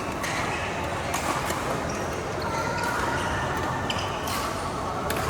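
Badminton rally: sharp racket strikes on the shuttlecock every second or so, with shoes squeaking on the court, over a steady hum of hall noise.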